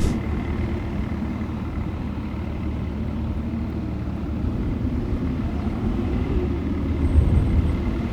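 A motor vehicle's engine running steadily, with a low rumble that grows a little louder near the end.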